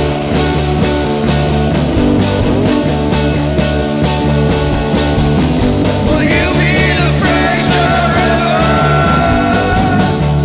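Background music with a steady beat, with a wavering high lead line coming in about six seconds in.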